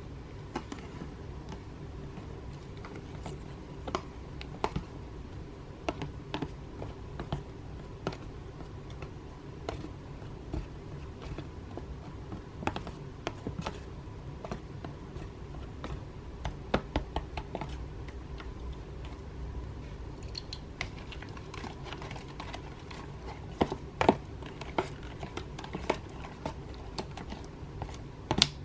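Slime being squeezed and worked by hand, making irregular sticky clicks and pops over a steady low hum, with a few louder pops near the end.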